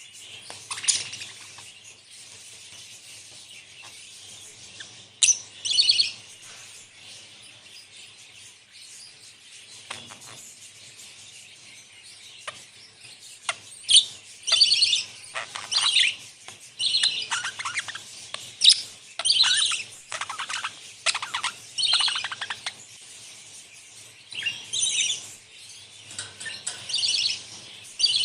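A flock of budgerigars chattering, a steady high warble under short, loud, sharp chirps that come thick and fast from about halfway through.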